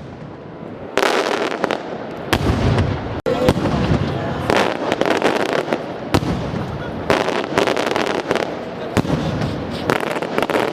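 Fireworks display: a dense run of bangs and crackling shell bursts in quick succession, beginning about a second in.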